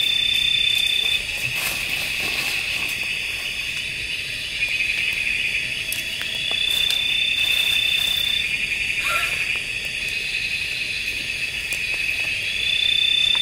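Dense chorus of night insects in tropical forest: a steady shrill chirring, with a higher whistling tone that sets in for a second or two at the start, again midway and near the end. A few light clicks of tent poles being handled.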